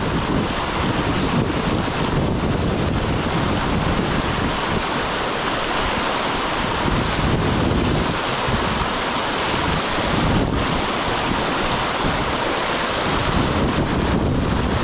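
Steady rush of flowing river water, a constant loud wash of noise.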